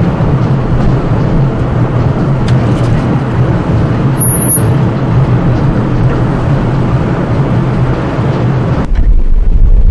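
Single-girder gantry crane travelling along its rail: a loud, steady electric-motor hum over running noise, with a brief high squeal about four seconds in. The sound cuts off abruptly near the end, leaving a low rumble.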